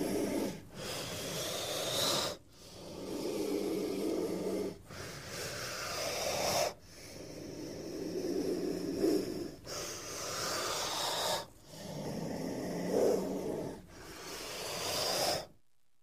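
Snake hissing: a run of long hisses that go in and out like heavy breathing, each about two seconds with short breaks between them, about eight in all, stopping shortly before the end.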